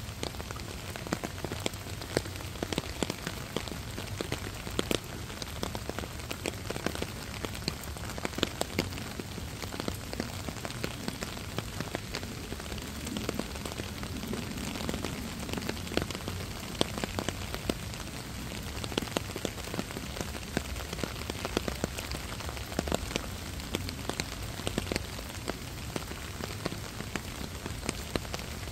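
Steady rain falling: a constant hiss scattered with many sharp individual drop hits close by.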